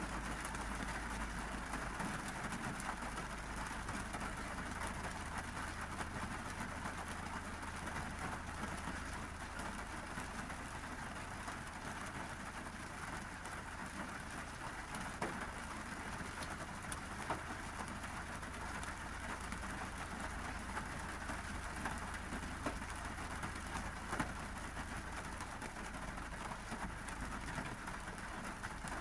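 Steady monsoon rain falling on a car's roof and windows, heard from inside the car, with a few louder single drop hits over a steady low hum.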